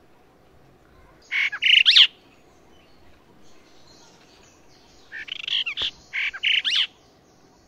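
Brahminy starling calling in two short bouts of harsh, squeaky notes with quick rising whistles, about a second in and again from about five to seven seconds in.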